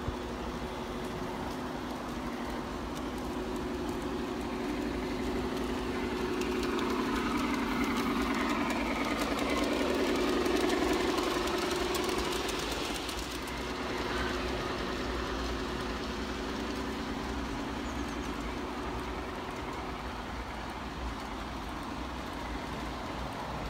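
G-gauge model train running on garden track: a steady gear-and-motor hum with wheels clicking over the rails. It grows louder about halfway through as the train passes close, then fades.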